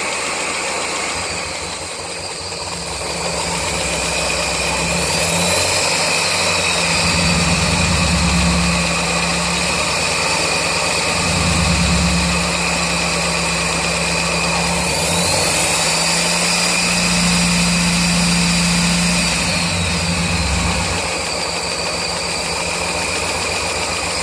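1999 Mazda Miata four-cylinder engine running with its #4 injector disabled: idling, revved up twice for a few seconds each time, then settling back. A light engine tapping carries on with the cylinder cut, about as much as with all four running. Setting valve lash to spec and changing the oil have not cured it.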